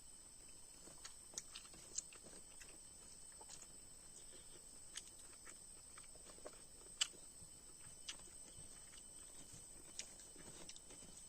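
Faint eating sounds: soft, scattered clicks of chewing and mouth noises, a few every couple of seconds, over a quiet hiss.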